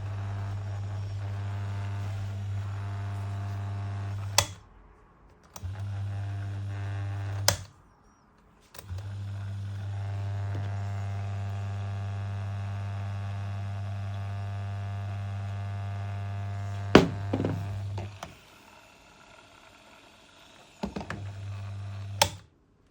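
Electric stand fan's motor humming steadily, switched off and back on several times, each change marked by a sharp click of its switch.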